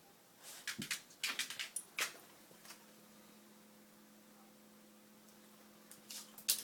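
Small dog licking and nosing at his empty food bowl: quick clusters of clicks and scrapes in the first two seconds and again near the end. A steady low hum starts about two and a half seconds in.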